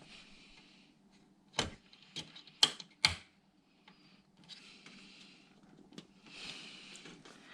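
Plastic clicks and knocks from PC parts and cable connectors being handled and pushed into place, with stretches of rustling in between. A few sharp clicks come close together in the first half, and one more near the end.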